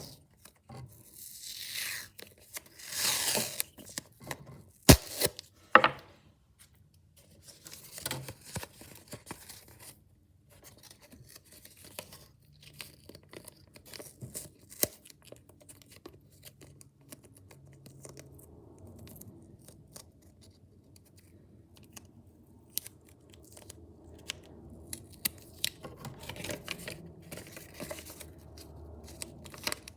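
A sheet of paper being handled: a long ripping rasp about two seconds in, two sharp clicks around five seconds, then scattered rustling and light knocks.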